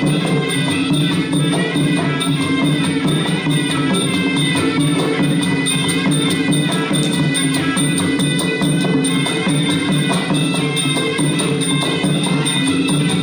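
Traditional Kun Khmer ring music: a sralai reed-pipe melody of held tones over continuous drumming and quick cymbal strikes.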